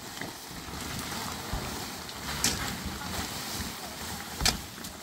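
Plastic sheeting rustling and dry reeds crackling as a reed-and-plastic roof layer is torn up by hand. Two sharp cracks, one about halfway through and a louder one near the end.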